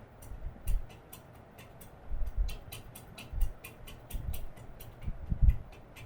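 Electric steam vaporizer heating its water toward the boil just after being switched on: irregular sharp ticks and crackles, several a second, with occasional low thumps.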